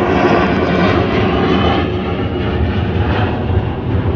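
Jet airliner passing low overhead after takeoff: loud, steady jet engine noise, a deep rumble with a whine of engine tones that fades after about a second and a half, the whole sound easing slightly as the aircraft climbs away.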